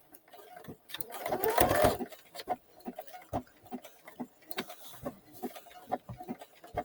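Brother CS-6000i computerized sewing machine running a decorative stitch, the needle mechanism ticking evenly about three times a second, with a louder burst of noise between about one and two seconds in.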